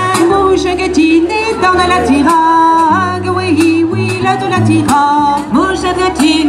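Live folk band playing dance music: women's voices singing a melody over a double bass and drums.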